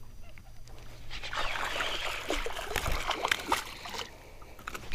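Water splashing as a hooked bass thrashes and jumps at the surface, starting about a second in and lasting a few seconds.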